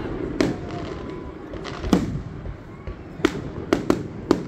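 Aerial firework shells bursting with sharp, echoing bangs: single bangs about half a second and two seconds in, then four in quick succession over the last second and a half.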